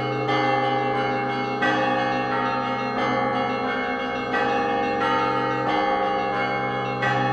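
Bronze Russian Orthodox church bells ringing: smaller bells struck in a quick repeating rhythm, about every two-thirds of a second, over the held ringing of a deep bell.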